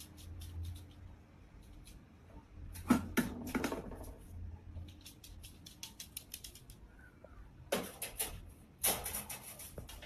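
Light clicking and clattering: a small puppy's claws on a hard floor and its wire dog crate rattling as it pushes in, with louder clatters about three seconds in and again near the end. A low hum runs under the first half.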